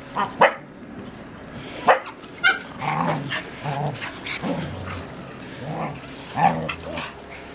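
Finnish Lapphunds and other spitz-type dogs in rough play. There are sharp barks and yips near the start, around two seconds in and again near the end, with lower, drawn-out vocal sounds between them.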